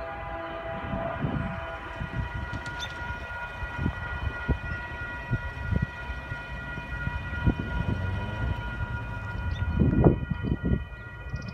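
Distant locomotive horn held as one long, steady chord while the train approaches, with gusts of wind buffeting the microphone, heaviest near the end.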